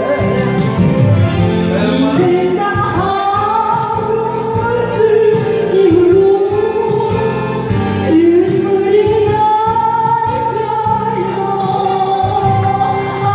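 A female singer sings a Korean ballad over an instrumental backing track, holding long, wavering notes.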